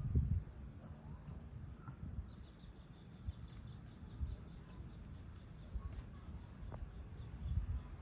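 Evening insects trilling steadily in a high continuous buzz, with a fainter pulsing chirp joining about two seconds in. Irregular low rumbles come and go underneath, and a few faint short chirps sound now and then.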